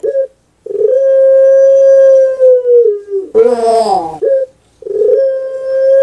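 Puter pelung (Barbary dove) cooing: a long held note that steps lower, then a harsh rattling note falling in pitch about three seconds in. A short note and a brief pause follow, then the next long note begins.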